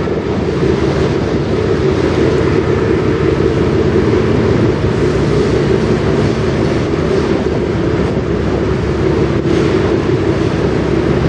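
Pusher tug's diesel engines running with a steady low drone as they push a barge.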